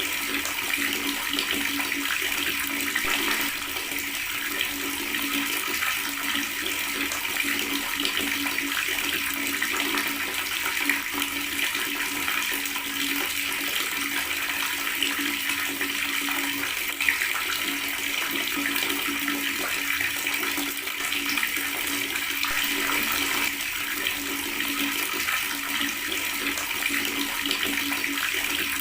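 Water tap running and gurgling in a steady, unbroken stream.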